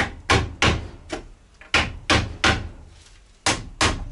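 Hammer driving small nails into wooden cladding boards: about nine sharp strikes in quick groups of two or three.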